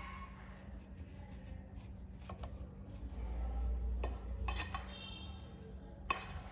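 A metal spoon stirring and tossing roasted kunafa vermicelli strands in a steel bowl: a crisp, continuous rustling of the strands, with a few sharp clinks of the spoon against the bowl, the loudest about six seconds in. A steady low hum runs underneath.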